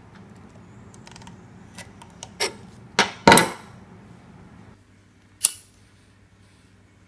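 Knife chopping through paracord onto a plastic cutting board: a few light taps, then two sharp knocks about three seconds in. About five and a half seconds in, a single sharp click as a Bic lighter is struck to melt the cut ends.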